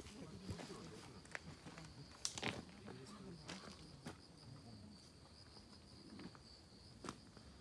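Faint, steady high-pitched trill of insects singing, with scattered light clicks and rustles through it.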